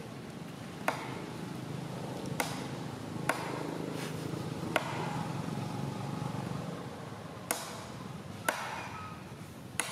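Sharp knocks or cracks, about seven at irregular intervals of one to three seconds, over a steady low background murmur.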